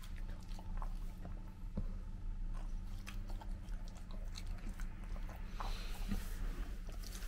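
A golden retriever chewing and biting its food, with small wet smacks and clicks scattered through, over a low steady hum.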